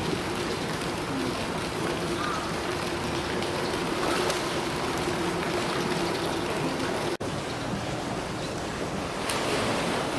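Polar bear swimming in a zoo pool: a steady rush of water with sloshing and splashing. The sound cuts out for an instant about seven seconds in.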